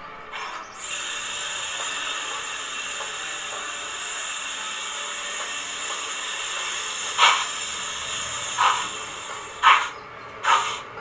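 Steam locomotive sound from a model's DCC sound decoder through its small built-in speaker: a long steady steam hiss, then several short puffs of exhaust about a second apart near the end, like a slow chuffing start.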